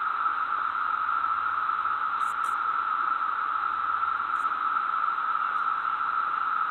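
Steady, even hiss held at one mid pitch, without any change in level.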